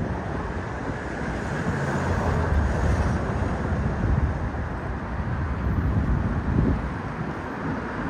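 Wind buffeting the microphone outdoors: an uneven, gusting low rumble over a steady hiss.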